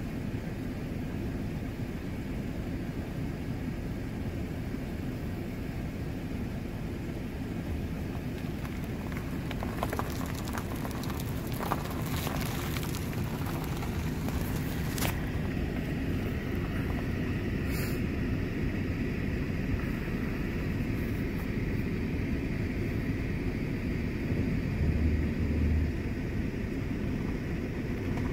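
Steady low rumble of a car engine idling, heard from inside the car's cabin.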